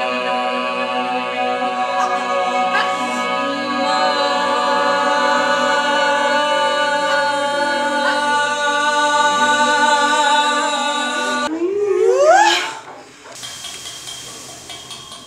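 A choir of many voices singing a sustained a cappella chord, several notes held steadily together. About eleven and a half seconds in the chord breaks off and a voice sweeps steeply upward in pitch, the loudest moment. Quieter, fainter voices follow.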